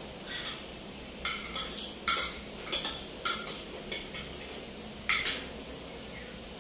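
Cutlery clinking against ceramic plates and bowls during a meal: about a dozen short, sharp clinks in quick, irregular succession, falling quiet near the end.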